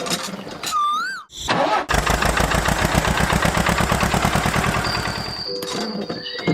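A small engine starts about two seconds in and runs with a rapid, even putter for about three and a half seconds before stopping.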